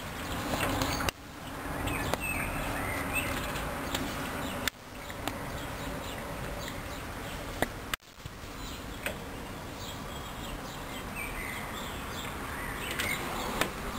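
Hoover DYN 10124DP front-loading washing machine running a rinse cycle: a steady hum with water and drum noise. It is cut off abruptly three times.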